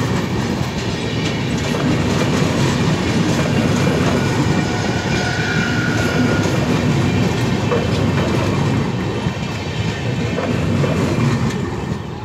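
Passenger coaches of the Shramjeevi Express passing close by on the rails: a steady rumble of wheels on track with clickety-clack over the rail joints. The noise begins to fade near the end as the last coach goes by.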